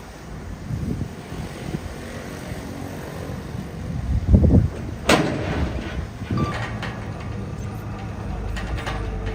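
Heavy diesel earthmoving machinery running with a low rumble. A heavy thud comes about four and a half seconds in, then a sharp metallic clank, with lighter knocks near the end.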